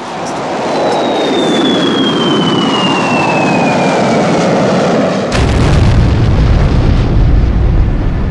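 Film sound effects: a loud rushing whoosh with a whistle falling steadily in pitch. About five seconds in, it cuts suddenly to a loud, deep explosion-like rumble.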